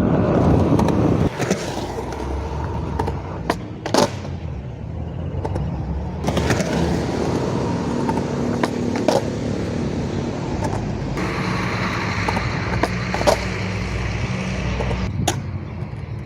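Skateboard wheels rolling, with sharp snaps from the tail popping and the board landing on several tries.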